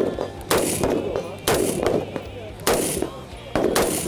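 A string of rifle shots on an outdoor range, about one a second, each a sharp crack followed by a short echo.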